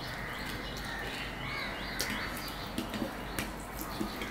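Chewing of a mouthful of fried luchi bread, with a few sharp clicks. A small bird chirps in the background in a quick series of short, rising notes, about three a second, which fades out about halfway through.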